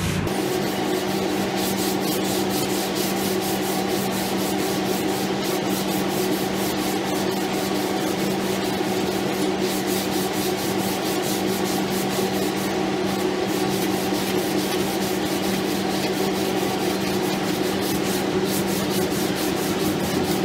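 Long sanding block with sandpaper being pushed back and forth by hand over polyester sprayable filler on a car body panel, a continuous rasping rub of rapid strokes as the panel is blocked straight. A steady low hum runs underneath.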